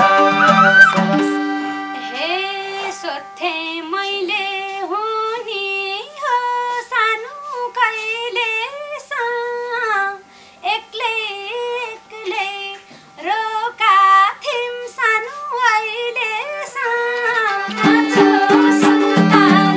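Live Nepali dohori folk music. About a second and a half in, the harmonium and madal backing drops out and a lone melody of bending, gliding phrases carries on. The full backing returns near the end.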